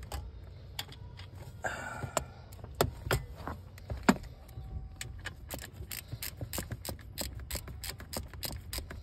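Scattered metallic clicks and a short scrape, then from about five seconds in a steady quick clicking, about three clicks a second, of a ratchet wrench being worked.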